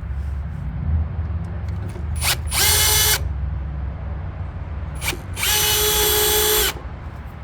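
Cordless drill driving screws to fasten a camper taillight housing, in two short runs: a brief one and then one of just over a second, the motor's whine holding a steady pitch and stopping abruptly each time.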